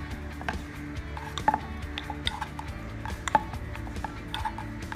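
Rolling pin knocking and clacking irregularly against a rolling board as dough is rolled out into a thin puri, over steady upbeat background music.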